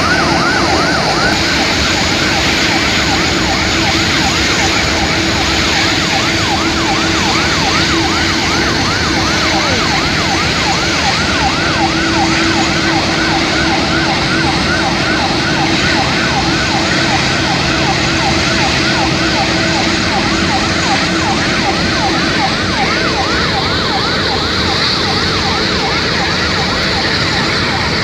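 Airport fire trucks' sirens in a fast yelp, the pitch sweeping up and down a few times a second without a break, over a steady lower hum.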